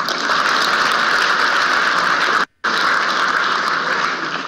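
Audience applauding, a steady dense clatter of many hands clapping; it breaks off for a split second about two and a half seconds in, then resumes and begins to fade near the end.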